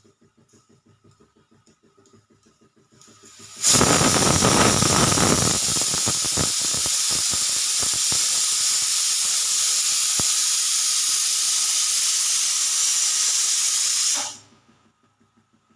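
Pressure cooker whistle going off: a sudden loud hiss of steam escaping past the weight, rough and sputtering at first, then steady for about ten seconds before it cuts off.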